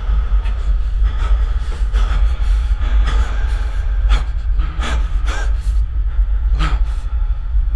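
A man gasping and breathing hard in short, irregular breaths, over a loud, steady low rumble.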